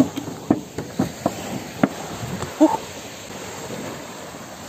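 A handful of sharp clicks and knocks at uneven intervals over the first two seconds, then a short pitched sound about two and a half seconds in, over a steady hiss of surf.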